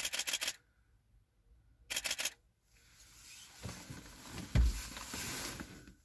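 Camera shutter firing in two rapid bursts of about half a second each, roughly two seconds apart. Then a few seconds of rustling with one dull thump, as the camera is lowered and binoculars raised.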